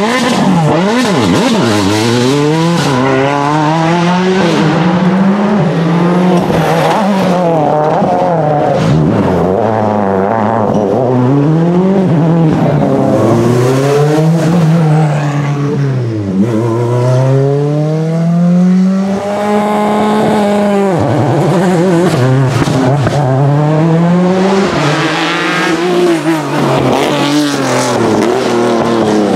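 Rally car engines revving hard and accelerating, the pitch climbing and falling back again and again through the gear changes, with several cars heard in turn, among them a Škoda Fabia WRC and a Peugeot 205 Turbo 16.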